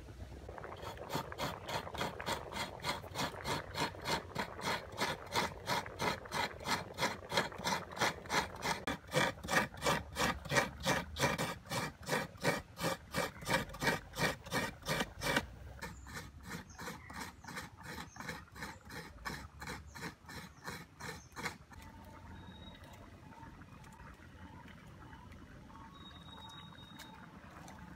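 A coconut half being grated by hand against the serrated blade of a coconut scraper, in a quick, even rhythm of rasping strokes, about three or four a second. The strokes grow fainter past the middle and stop a little over three quarters of the way through.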